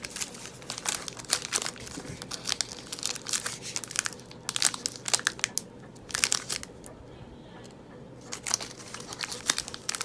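Foil Pokémon card booster pack wrapper crinkling in short crackles as it is handled and pulled at while it won't open, with a quieter stretch a little past the middle.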